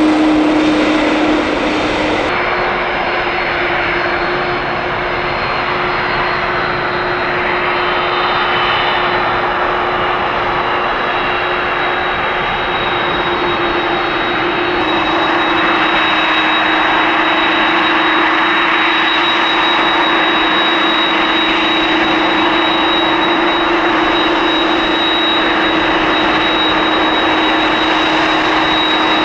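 Jet airliner engines running: a continuous rushing noise with a steady high whine and a lower steady hum.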